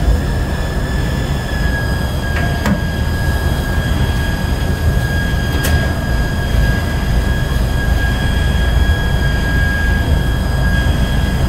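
Elevator machine-room equipment running: a steady low rumble under a constant high-pitched whine, with a few sharp clicks about two and a half seconds in and again near the middle.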